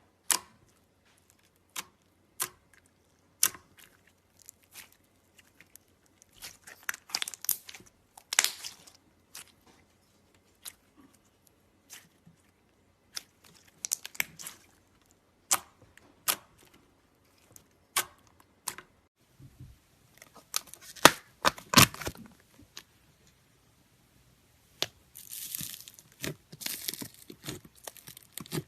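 Boba slime being handled: sharp pops every second or two as air pockets in the slime burst, with a few bursts of crackling as it is pressed and stretched.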